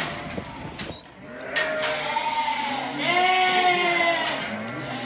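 Sheep bleating: long calls one after another from about a second and a half in. A few sharp knocks come in the first two seconds.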